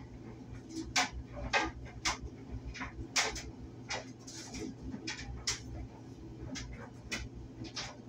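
Heavy-duty clothes dryer running: a steady low hum with irregular clicks and knocks from the load tumbling in the drum.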